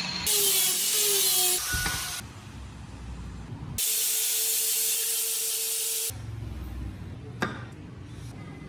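Two bursts of pressurised spray hissing, a short one near the start and a longer one of about two seconds in the middle, with a steady tone under the second burst. A single sharp click follows near the end.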